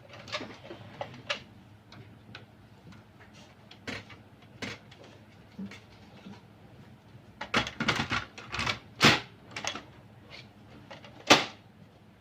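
Clicks and knocks from hands working on an HP LaserJet P2035 printer during repair: scattered at first, a quick run of them about seven to nine seconds in, and one sharp knock near the end.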